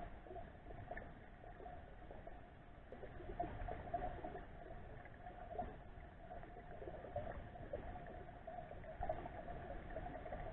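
Muffled underwater sound picked up by a submerged camera: a low rumble of moving water with a faint steady hum and scattered small crackles and clicks.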